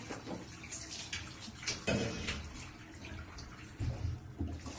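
Water from a shower head splashing in a bath, with scattered drips and clicks and a few knocks of handling, the loudest about two seconds in and near the end.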